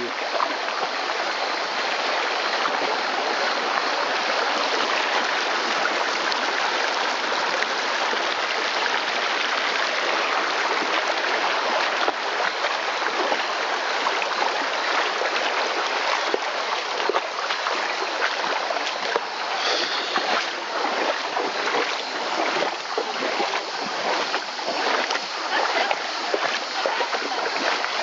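Shallow stream rushing steadily over stones. From about halfway on, people wade through it with frequent splashing steps.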